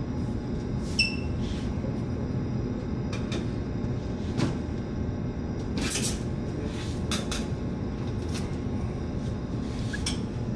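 Sheet-metal furnace cover panels being handled and taken off: scattered metallic clicks and knocks, with a short squeak about a second in, over a steady low rumble.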